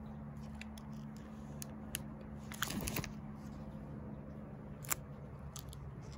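A photo album page being turned, its plastic photo sleeves crinkling in a short burst about two and a half seconds in, with a few small clicks around it, over a steady low hum.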